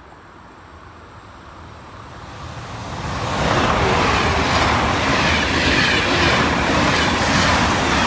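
A train passing close by on the rails: the rumble of its wheels on the track builds over about three seconds, then stays loud, with a faint regular clatter.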